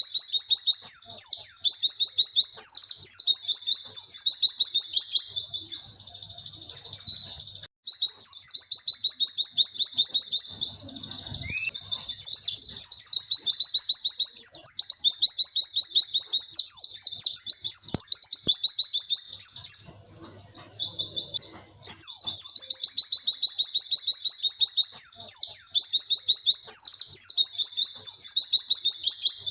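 White-eye (pleci) singing its long 'witwit' song: runs of rapid, high-pitched repeated notes, breaking off briefly twice, at about six seconds in and again at about twenty seconds.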